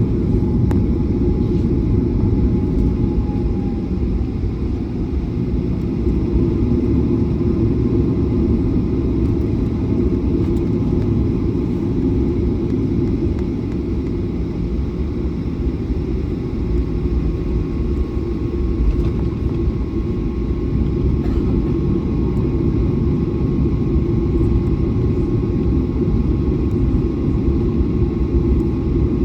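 Airliner taxiing: a steady low rumble of the jet engines at taxi power and the wheels rolling, with a faint thin whine above it.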